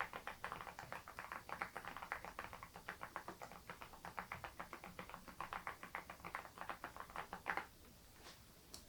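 Fast typing on a Geekstar GKG87R tenkeyless mechanical keyboard fitted with stock HMX Sunset silent switches: soft, muted keystrokes at about eight to ten a second. The typing ends with one louder stroke about seven and a half seconds in, followed by a couple of faint clicks.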